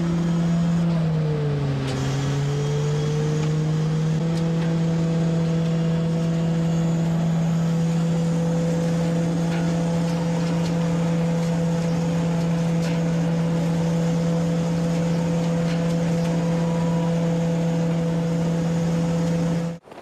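Engine of a cherry-harvesting machine running steadily, its pitch dipping briefly about a second or two in and then settling back, with scattered faint clicks. Cuts off abruptly near the end.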